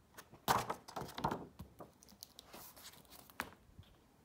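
Glossy magazine pages being turned and handled: a few short bursts of paper rustling, then a single sharp tap a little before the end.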